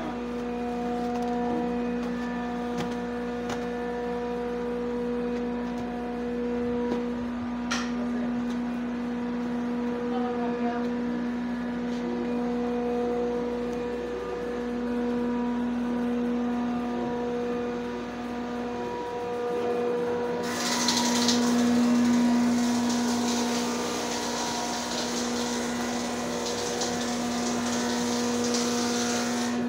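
Steady machine hum in a woodworking shop, a single pitched drone that holds throughout. About twenty seconds in, a loud hiss joins it and continues to the end.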